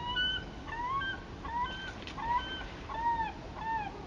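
Geese honking: a run of short, arched honks, two or three a second, over the steady low rush of the river.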